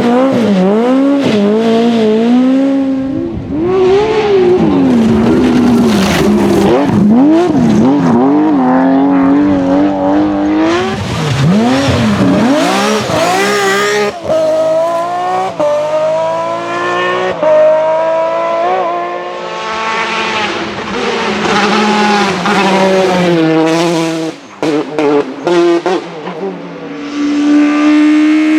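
Rally cars driven flat out on a stage: engines revving high and dropping back again and again with gear changes and lifts, one car after another.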